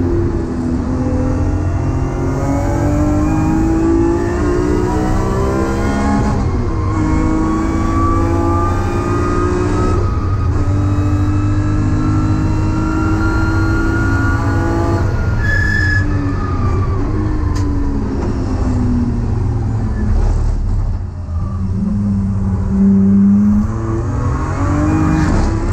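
BMW E30's swapped-in S54 3.2-litre straight-six accelerating hard, heard from inside the cabin: the revs climb and drop sharply at two upshifts about 6 and 10 seconds in, climb again, then fall away over several seconds as the car slows, and rise once more near the end.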